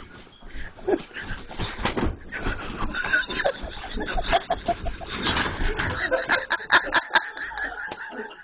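A dog scrabbling and scuffling inside a fabric play tunnel on carpet, with short yelps and whines among many quick knocks and rustles, and bits of laughter.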